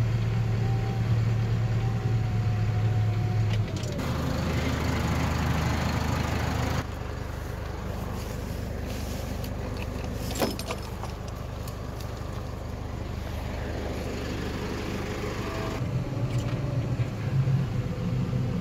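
Tractor engine running steadily during a bumpy ride, its low hum changing abruptly twice early on, with a single sharp click and short squeak about ten seconds in.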